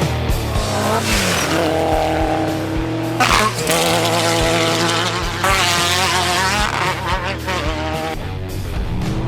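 Off-road race vehicle engine revving hard, its pitch rising near the start and then wavering up and down, over rock music with a steady beat.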